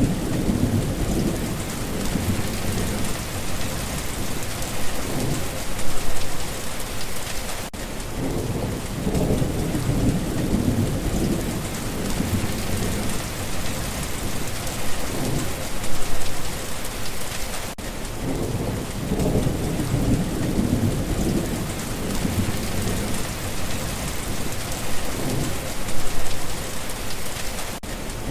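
Steady rain falling, with low rolling thunder that swells about every ten seconds.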